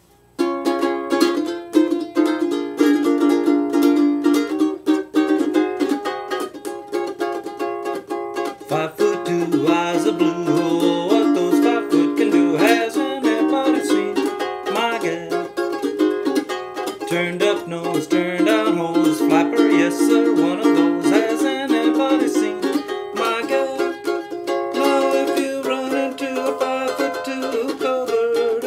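Maccaferri Islander plastic ukulele being strummed in chords, freshly restrung and tuned, played as a test after repair. The playing starts about half a second in.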